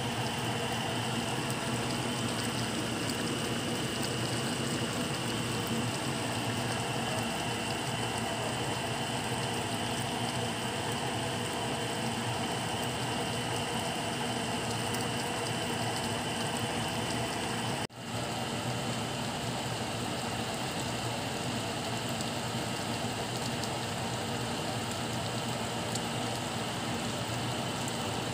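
Pork dinuguan stew simmering in a pan on the stove: a steady bubbling and crackling patter, broken by a brief dropout about eighteen seconds in.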